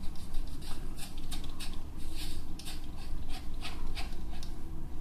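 Razor scraping through beard stubble under shaving foam on the cheek and neck in short repeated strokes, about three a second, over a steady low hum.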